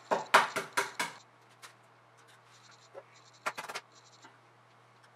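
Eggs being cracked open by hand: a quick run of sharp shell taps in the first second, then a second short cluster of taps about three and a half seconds in.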